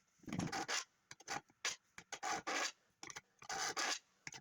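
A hand file rasping at the edge of a freshly drilled hole in an electric tea kettle's body, in several back-and-forth strokes about a second apart.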